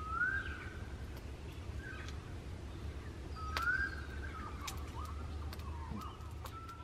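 Bird calls: a rising whistled note twice, about three and a half seconds apart, then a run of shorter whistles. Under them are a steady low rumble and a few sharp clicks.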